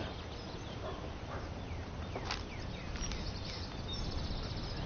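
Outdoor garden ambience: small birds chirping now and then over a steady background hiss.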